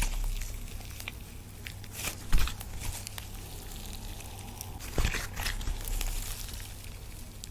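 Hands squishing and stretching clear slime mixed with lipstick: sticky crackles and small pops, with louder squelches about two and a half and five seconds in.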